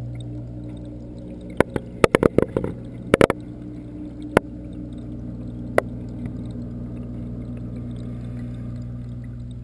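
Steady hum of aquarium pumps and water movement heard from inside a reef tank through a submerged camera. A quick run of sharp clicks and knocks comes just under two seconds in, and two more single clicks follow.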